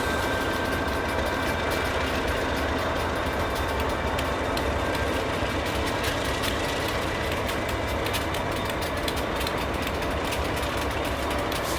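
NS GE C40-9W and EMD SD60I diesel-electric locomotives working as they pull a heavy coil train out of the yard: a steady low engine rumble with a faint high whine. Occasional sharp wheel clicks from the train on the rails come more often in the second half.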